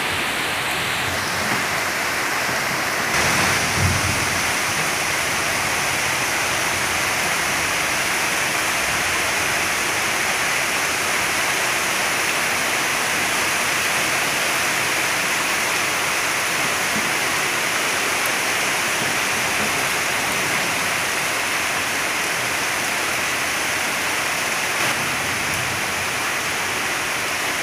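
Steady heavy rain: an even, dense hiss of falling water. A short low rumble rises and fades about three to four seconds in.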